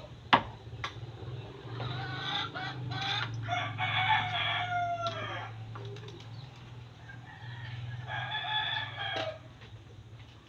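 Rooster crowing twice: a long crow from about two seconds in that falls away at its end, and a shorter one near the end. A sharp knock just after the start, with a steady low hum underneath.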